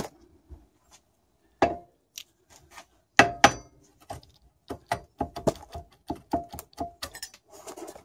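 Hammer strikes on a turbocharger housing held in a bench vise, knocking the turbo apart. One tap comes about a second and a half in, then a run of quick metallic taps, about three a second, each with a short ring.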